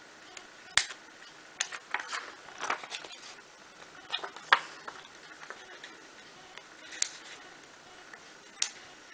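Fine parchment-craft scissors snipping through perforated parchment: a series of sharp, irregular clicks, bunched in the first half, then two single snips near the end.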